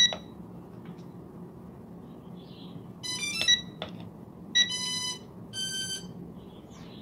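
Electronic power-on beeps from a quadcopter set being restarted: a short beep, then about three seconds in a quick run of stepped notes, followed by two longer steady beeps.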